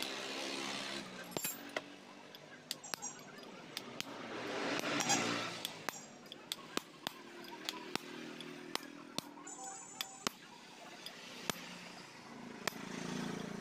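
Hammer tapping a steel drift and bar against a pinion gear shaft fitted with a bearing: irregular, sharp metallic taps and clinks. A rush of noise swells and fades about four to five seconds in.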